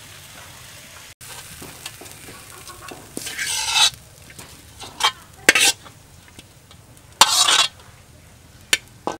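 Stir-fried noodles with shrimp being stirred and scraped out of a metal wok, in several short scraping strokes, the longest about three seconds in and about seven seconds in, over a low frying sizzle.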